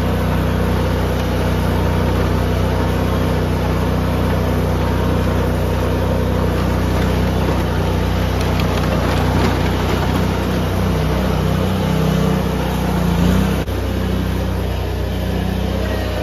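Riding lawn mower's small engine running steadily while being driven, its carburetor needle and seat freshly cleaned of debris. The engine note rises briefly about twelve seconds in, then drops suddenly.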